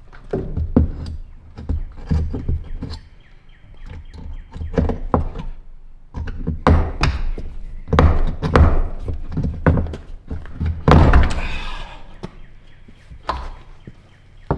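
Irregular blows and knocks on wood, like a hammer working on a barn wall's boards and nails, with a longer scrape about eleven seconds in.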